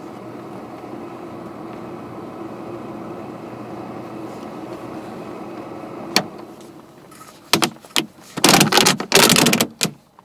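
Nakatomi MAC-10 portable spot cooler running with a steady hum; about six seconds in a click is followed by the hum dying away as it is switched off. Then the flexible plastic exhaust duct is pulled off its top with loud rustling and clattering.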